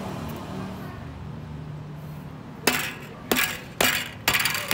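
Steel bicycle cassette sprockets clinking against each other and the freehub as the cassette is handled and fitted. A run of sharp metallic clinks, about two a second, begins a little past halfway.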